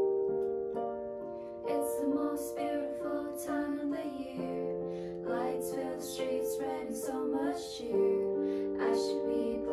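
Piano chords, joined about two seconds in by young women's voices singing a slow song together.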